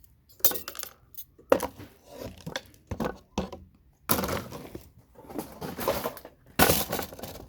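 Irregular cracking and clattering of hard plastic and metal as CPU sockets are knocked off scrap motherboards and handled, with a dense run of crunching from about four seconds in and a sharp crack near the end.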